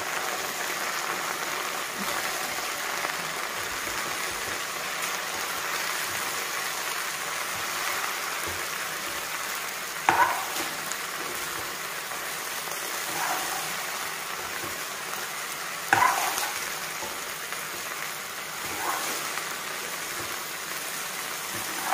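Sliced okra and onions frying in oil in a metal kadai, sizzling steadily as a spatula stirs in the spices. The spatula knocks against the pan now and then, most sharply twice, about ten and sixteen seconds in.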